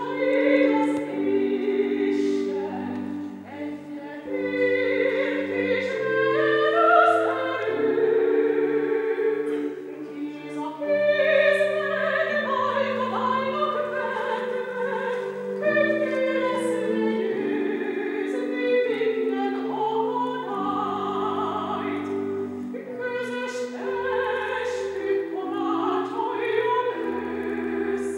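Classical sacred music: a singer in operatic style with strong vibrato, accompanied by held chords that change in steps.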